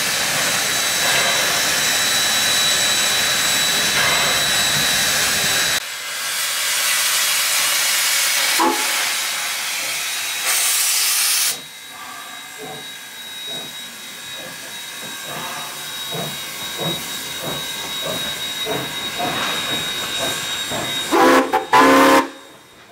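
Ex-South Australian Railways RX-class steam locomotive No. 207 hissing loudly as it blows steam from its cylinder drain cocks. It then chuffs at about two beats a second as it moves off. Near the end come two short steam whistle blasts.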